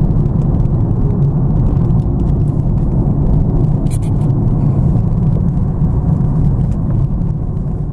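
Steady low rumble inside the cabin of a Maserati Quattroporte GTS on the move: engine and road noise.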